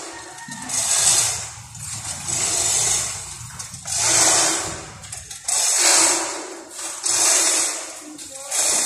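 Lifting tackle on a gin pole being hauled by hand to raise a steel I-beam: a rattling, hissing sound that swells and fades about once every one and a half seconds, one swell for each pull.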